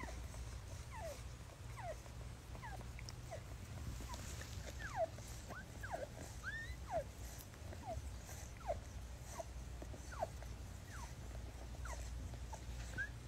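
Newborn kittens mewing: a run of short, thin, high squeaks, each sliding down in pitch, about one or two a second, faint over a low steady hum.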